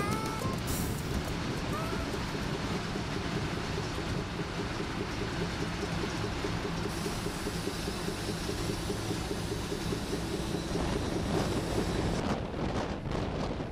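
ALn 663 diesel railcar running along the line, a steady engine drone under the rush of air and track noise from an open window. Gusts of wind hit the microphone near the end.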